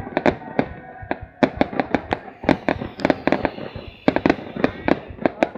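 Fireworks going off in a rapid, irregular string of sharp bangs and cracks, several a second, with brief lulls about a second in and about four seconds in.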